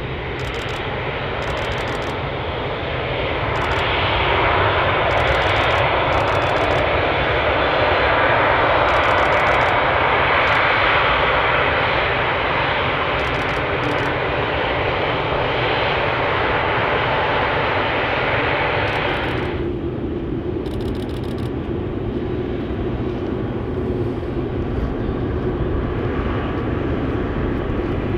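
Airbus A380 airliner's four jet engines running as it rolls along the runway, a steady dense roar that swells louder a few seconds in. About twenty seconds in, the sound turns abruptly duller and lower.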